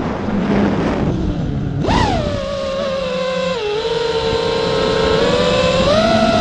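Radio-controlled car's electric motor whining as it drives, its pitch shooting up about two seconds in, then holding fairly steady with small dips, over rough rolling noise.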